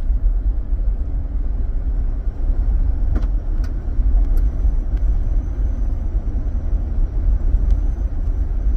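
Car driving along a road: a steady low rumble of engine and tyres, with a few faint ticks.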